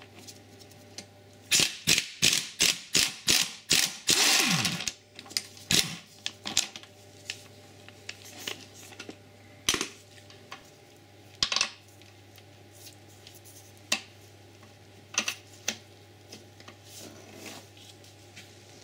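Hand ratchet clicking in quick strokes as an engine-to-gearbox bolt is undone, with a denser rattle about four seconds in. After that come scattered single metal clicks and clinks of the tool and bolt.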